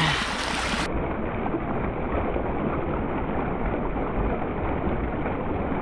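Muddy stormwater rushing down a roadside drainage ditch, a steady churning flow swollen by heavy overnight rain.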